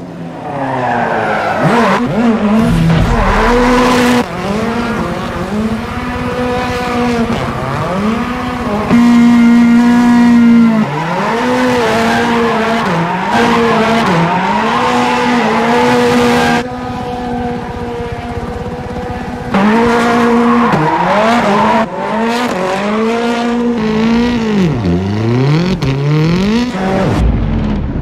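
Race car engine held high in the revs, its pitch dipping briefly again and again as the throttle is lifted and reapplied, once deeply near the end. Tyres squeal as the car drifts and spins its wheels in smoke.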